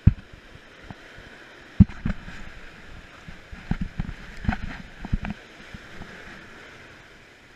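Rushing whitewater around an inflatable raft as it runs a rapid, with a series of knocks and thumps from paddles striking the water and the raft: a sharp one at the start, another about two seconds in, then a run of smaller ones.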